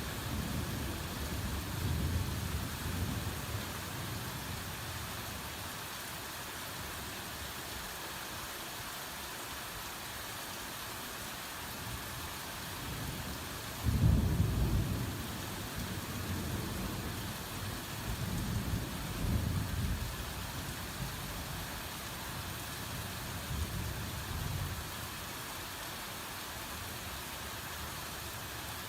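Hard rain falling in a steady hiss, with thunder rumbling low in the first few seconds; about 14 seconds in, a sudden loud crack of thunder rolls on in waves for about ten seconds.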